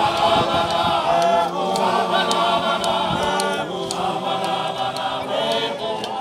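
A group of voices singing a chant-like song together in harmony, with long held notes.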